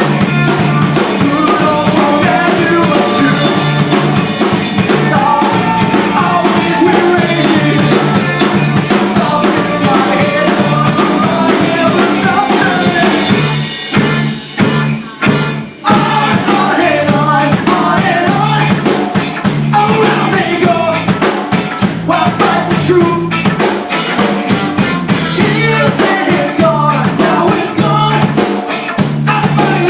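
Rock band playing, with a drum kit keeping the beat. About halfway through the band breaks into a few separate stop-hits for a couple of seconds before playing on.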